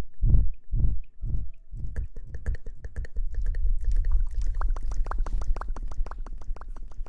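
Close-miked ASMR handling sounds on the microphone: deep thumps about twice a second at first, giving way about a second and a half in to a low rumble with fast crackly tapping and rubbing that gets busier later on.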